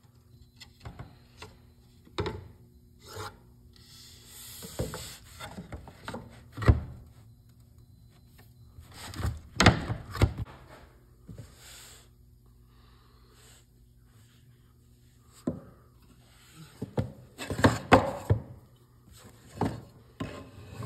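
Wooden boards being set down and slid across a table saw's top: scattered knocks and short scraping rubs of wood on wood and metal, with a faint steady hum underneath.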